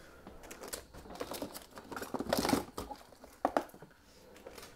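Rummaging through kitchen items for an ingredient: rustling and crinkling with scattered clicks and knocks, busiest around the middle, with two sharp knocks a little past halfway.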